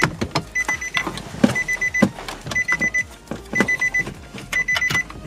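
A car's electronic warning chime beeping about once a second, each beep a quick run of rapid pulses, over clicks and knocks of the metal stereo chassis being slid back into the dashboard and its cables handled.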